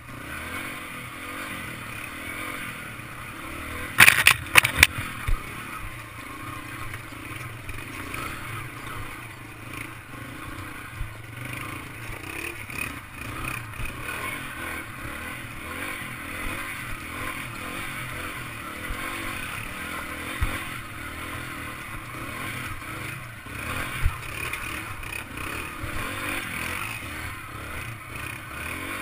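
Yamaha TT-R trail bike's single-cylinder four-stroke engine running steadily while riding over rocky dirt trail. A quick cluster of loud knocks and rattles comes about four seconds in, with a few single knocks later.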